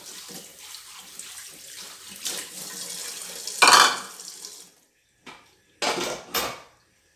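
Kitchen tap running into a sink as dishes are rinsed, water splashing against a bowl, loudest in one splash just before halfway. The water then stops, and a few short splashes follow.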